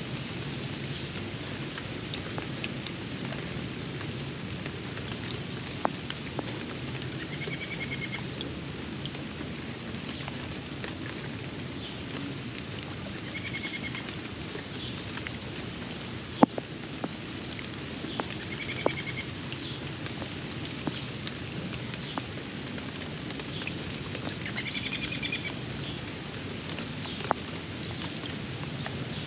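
Steady rain falling, with scattered sharp drips. A bird gives the same short call four times, several seconds apart.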